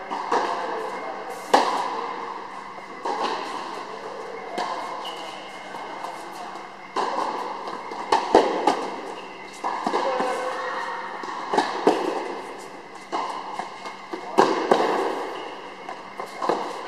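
Tennis balls struck by rackets and bouncing on the court during a rally, a sharp pop every second or two, each one echoing in a large hall.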